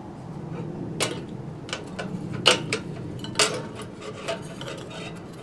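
Metal clinks and taps from handling an old kerosene lantern's metal frame and parts, with three sharper knocks about one, two and a half and three and a half seconds in.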